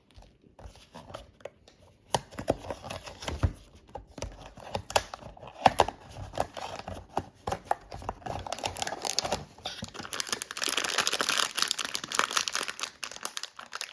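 Blind-box packaging being torn open and handled: scattered tearing and rustling at first, then steady, dense crinkling of the wrapper from about ten seconds in.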